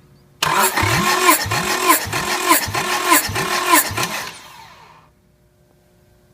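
Starter motor cranking a Honda F23A 2.3-litre four-cylinder engine for a compression test, with about six rhythmic pulses, each with a rising whine, as the engine turns over against compression. It starts abruptly, runs about four seconds, then winds down and stops.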